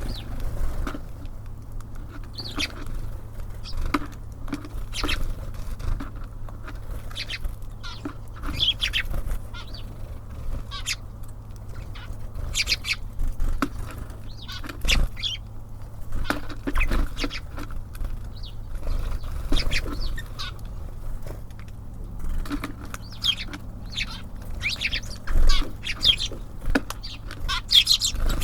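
Small birds at a feeder, such as tits and sparrows, chirping in short, high calls, with wing flutters and sharp taps as they come and go. A steady low hum lies underneath.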